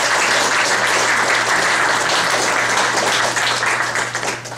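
Audience applauding steadily, starting to die down near the end.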